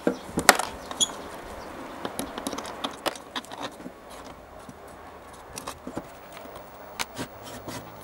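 Irregular metal clicks and knocks as pliers are handled and set against the brass top and shaft nut of an old wooden-box coffee grinder during disassembly, the loudest knock about half a second in.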